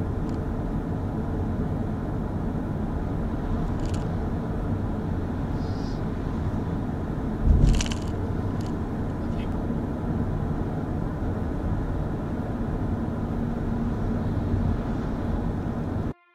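Road and wind noise inside a Kia e-Niro electric car cruising at speed: a steady low rumble with a few light clicks and one thump about halfway through. The sound cuts off suddenly near the end.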